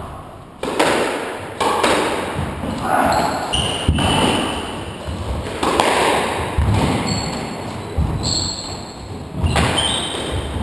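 Squash rally: the ball cracking off rackets and the walls of the court about once a second, each hit echoing, with short high squeaks of shoes on the wooden floor.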